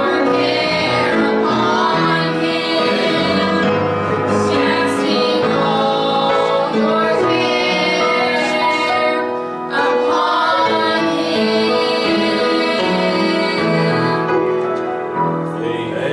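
A group of girls singing a gospel song together over instrumental accompaniment, the song closing on a held final note near the end.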